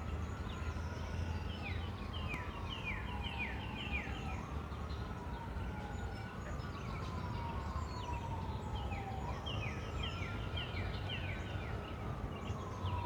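A distant siren wailing, its pitch rising and falling slowly over and over. Twice a bird sings a quick run of down-slurred whistled notes over it.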